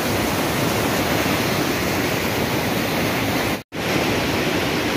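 Glacial meltwater stream rushing over rocks, a steady roar of water. It cuts out in a brief gap of silence a little over three and a half seconds in, then the rush resumes.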